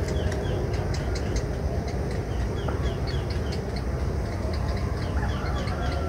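Heron nestlings calling from the nest: short, high, falling chirps in quick little runs of three or four, repeated throughout, over a steady low rumble.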